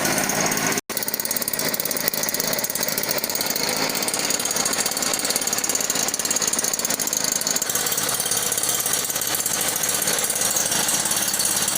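Small engine of a motorised larviciding sprayer running steadily at high revs, with a fast, even buzzing pulse. The sound cuts out for an instant about a second in.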